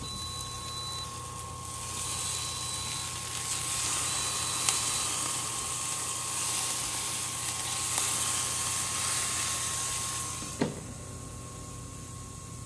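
Beef skirt steak sizzling on the Gourmia GGA2100 smokeless grill's 500°F grill plate with the lid open while it is turned over with tongs, with a few light clicks of the tongs. The glass lid knocks shut about ten and a half seconds in and the sizzle drops away. A steady whine from the grill runs underneath.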